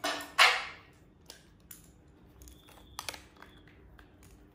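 A handheld digital multimeter being picked up and handled, with two rustling scrapes at the start, then several light clicks as its selector dial and buttons are worked, setting it to continuity.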